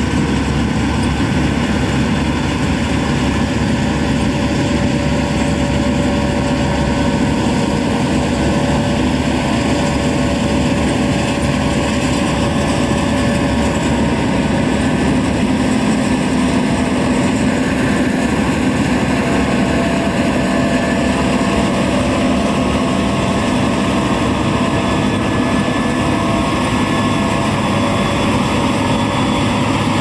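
Case IH 5130 Axial-Flow combine running while harvesting rye: a steady diesel engine and threshing-machinery drone with several steady whining tones, holding an even level throughout.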